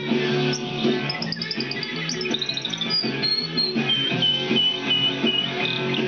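Male canary singing over loud punk rock music with electric guitar: a quick trill about a second in, gliding whistled notes, then a run of about six repeated high notes in the second half.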